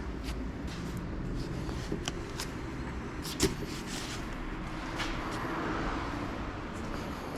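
Car engine running steadily, with scattered light clicks and one sharp knock about three and a half seconds in.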